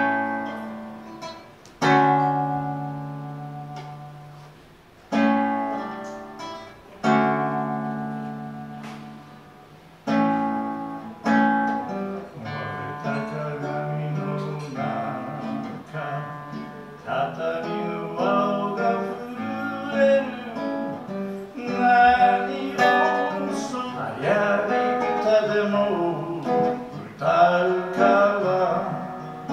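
A man singing to his own acoustic guitar. It opens with slow strummed chords left to ring out, then the playing gets busier and his voice comes in about halfway through.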